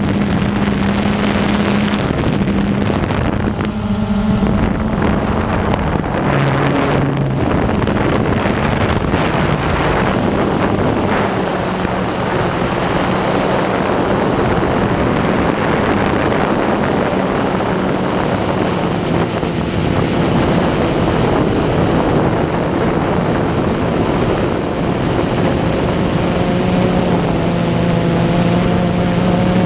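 Blade 350QX quadcopter's brushless motors and propellers whirring steadily, heard from the camera on the drone itself, with wind buffeting the microphone. The motor hum dips in pitch for a moment about six seconds in as the throttle changes, then holds steady.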